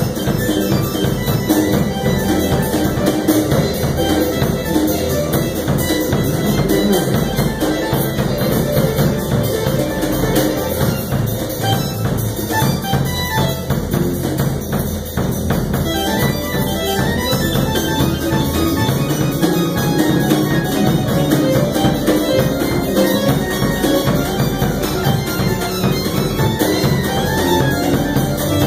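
A live band rehearsing a jazz-fusion tune: keyboards and synthesizers playing over a drum kit, loud and continuous.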